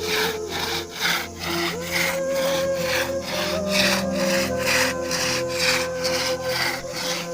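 Instrumental music: a held melody line over a steady scraping percussion beat of about three strokes a second.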